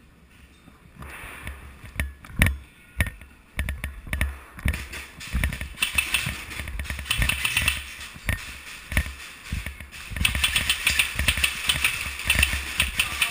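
Airsoft guns firing, with scattered sharp clicks and knocks at first, then from about ten seconds in a dense, rapid run of shots, over the thuds of a player moving with gear.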